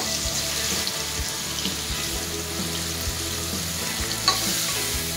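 Chopped onions, tomatoes, garlic and chilli sizzling steadily in hot oil in a pressure cooker, stirred with a wooden spatula, with a light scrape or tap about four seconds in.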